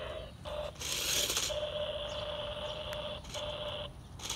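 Small electric motor of a toy RC stunt car whining at one steady pitch in on-off runs as it drives: a short run, then a brief rush of noise about a second in, then a longer run broken once near the end.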